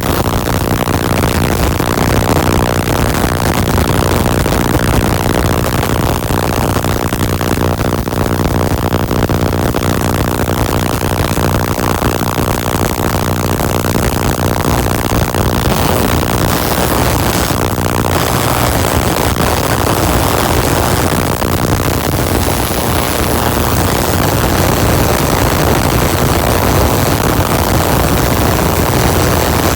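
Tesla coil with an air-blown spark gap running: a loud, steady buzz with a hiss and crackle, the gap firing continuously while the air blows through it.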